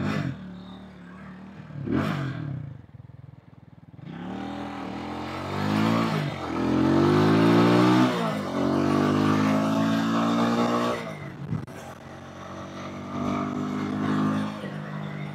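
Vitacci XMT 250 motorcycle engine pulling away and accelerating hard after about four seconds of low running. Its pitch climbs and drops back several times as it shifts up, with wind rushing past as speed builds.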